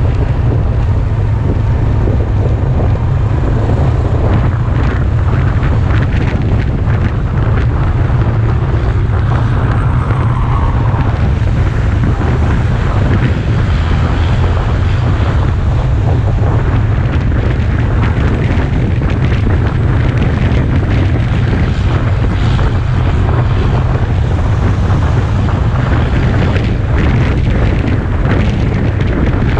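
Loud, steady wind rumble on the microphone of a moving sport motorcycle, with the bike's engine and road noise underneath.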